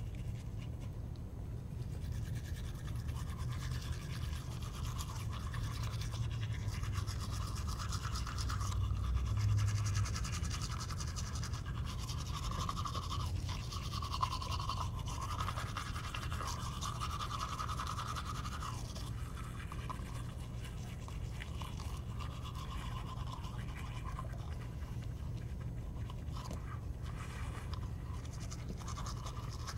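Three people brushing their teeth at once with manual toothbrushes and toothpaste: continuous scrubbing of bristles over teeth, busiest in the first two-thirds and easing toward the end, over a steady low hum.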